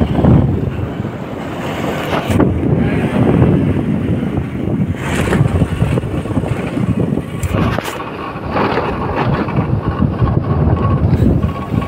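Wind buffeting the microphone on a moving motorcycle, surging unevenly, with the bike's engine running underneath.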